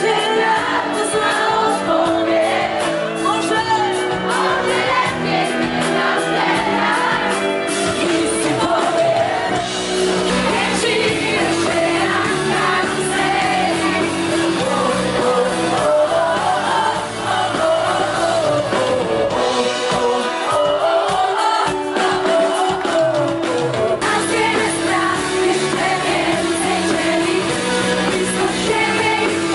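Live pop concert heard from the audience: a woman singing into a microphone over an amplified band with drums.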